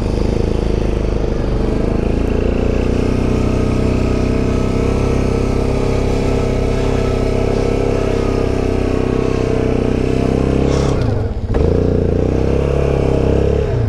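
ATV engine running hard at high, steady revs with the differential locked. It briefly drops off about eleven seconds in, then picks up again.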